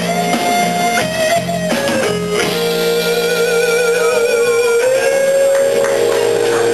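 Live band playing the closing bars of a song, led by guitar holding long notes, some wavering, over a steady bass line. The recording is poor and harsh.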